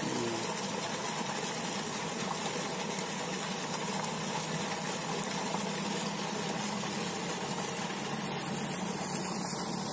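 Irrigation pump running steadily: a thick jet of water gushing from the outlet pipe into a concrete tank, over a steady low hum from the pump.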